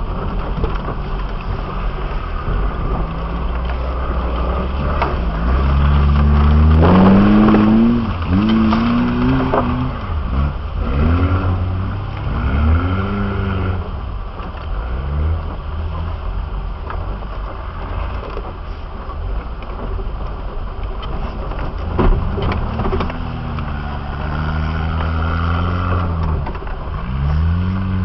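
A 4x4's engine heard from the vehicle itself while it drives off-road over a steep dirt slope, the revs rising and falling again and again as the driver works the throttle. It is loudest in a long rev-up about a quarter of the way in.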